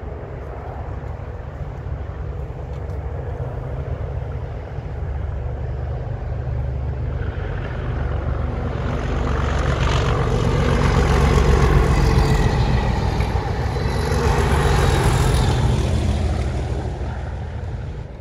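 Class 37 diesel-electric locomotive, with its English Electric V12 engine, hauling a test train past: a deep engine rumble that grows louder as it approaches, is loudest from about ten to sixteen seconds in with added wheel-and-rail hiss, then fades away.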